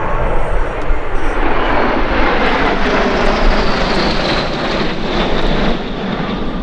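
Aero L-39 Albatros jets in an aerobatic display flying past: a loud jet roar that builds about a second in, with a high whine that sinks slightly in pitch, then eases near the end.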